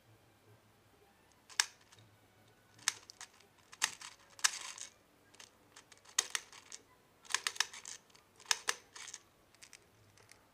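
6mm BBs being pushed one by one into the top of a KWC P226 CO2 pistol's double-stack magazine: a series of small sharp clicks, some single and some in quick clusters, at an uneven pace.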